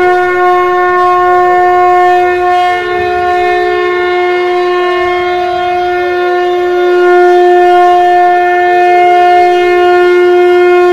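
Conch shell (shankh) blown in one long, steady, loud note, sounded as the call to begin battle.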